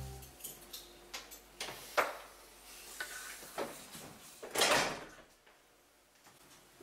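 A door being handled: a string of small clicks and knocks, the sharpest about two seconds in, then a longer scraping rush near the five-second mark.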